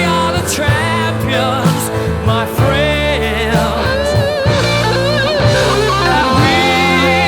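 Background rock music with a singing voice and guitar over a steady bass line.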